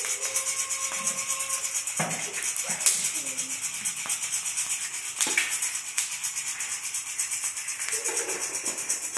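Coffee beans rattling and scraping in a small stainless steel saucepan as they are stirred with a long metal utensil during roasting, in quick, regular strokes.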